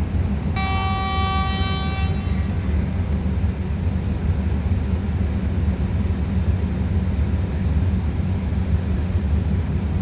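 Alsthom 4225 diesel-electric locomotive's engine running with a steady low rumble. About half a second in, a single horn toot sounds as one steady pitched tone for about a second and a half.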